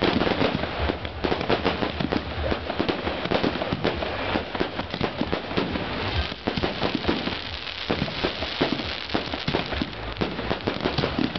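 Fireworks display: a dense, continuous barrage of rapid bangs and crackling.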